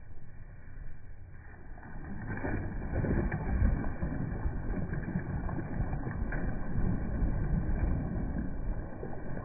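Cast net landing on the water, a low, muffled rushing splash that builds about two seconds in and then holds steady.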